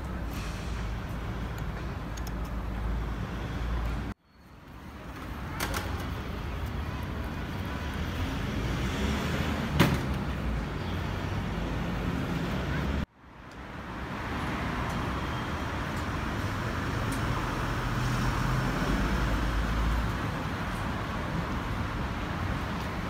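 City street ambience: a steady hum of road traffic. The sound cuts out abruptly twice and swells back in each time, with a single sharp knock in between.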